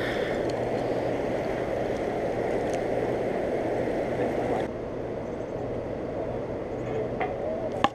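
Steady rush of fast, turbulent river water below, with a faint low steady hum underneath. The upper hiss drops away abruptly about two-thirds of the way through.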